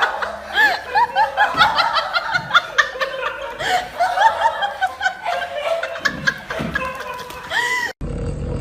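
A person laughing in many short, high-pitched bursts, which cut off abruptly near the end.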